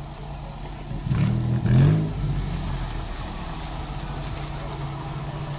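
Engine of a small 4x4 off-roader running at low speed on a muddy downhill track, revving up briefly about a second in with a rise in pitch, then settling back to a steady low note.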